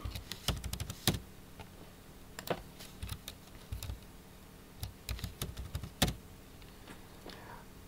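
Typing on a computer keyboard: a quick run of keystrokes at the start, then scattered single key clicks with pauses between them.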